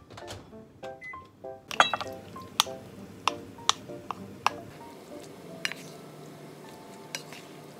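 Soft background music over a run of sharp clicks and knocks: a wooden spatula tapping and scraping a bowl and a rice cooker's inner pot as sauced chicken is scraped into cooked rice.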